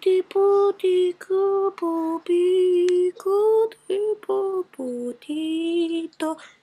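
A woman's voice singing a slow, wordless tune in a string of short held notes with brief breaks between them: a mock-hypnotic croon.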